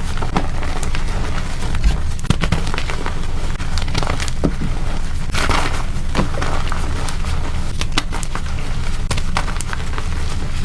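Blocks of gym chalk being crushed and crumbled, a dense run of irregular crunches and crackles with a few louder snaps, over a steady low hum.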